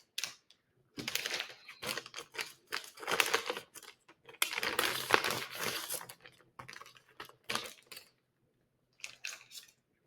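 Crinkling and tearing of medical supply packaging as IV supplies (saline flush and extension tubing) are unwrapped, in irregular bursts that pause briefly near the end.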